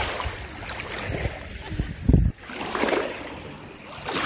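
Small waves washing in and out over a sandy, pebbly shoreline in swelling hisses, with a brief low thump on the microphone about two seconds in.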